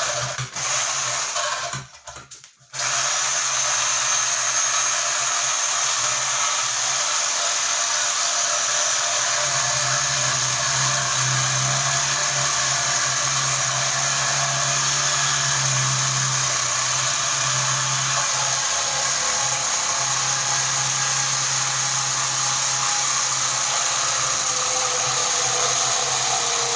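Reciprocating saw cutting through the welded metal shell of a compressor. It stops briefly about two seconds in, then runs steadily through the cut.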